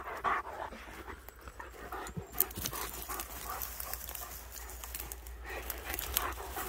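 German shepherd dog panting, with scattered crackles of dry twigs and pine needles underfoot.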